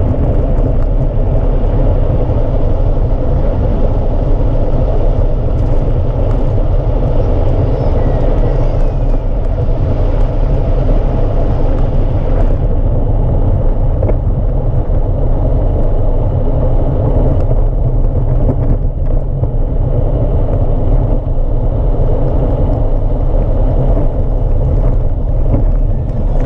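Steady low rumble of an engineless soapbox kart rolling downhill on tarmac, picked up by a camera mounted on the kart so that the wheel and chassis vibration dominates.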